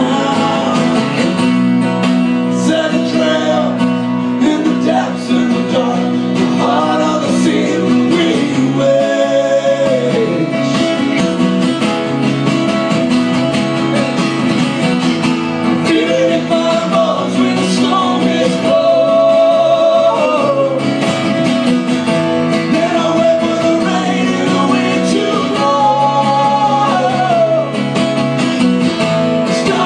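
Live acoustic music: acoustic guitar playing steadily, with a melody line bending in pitch above it.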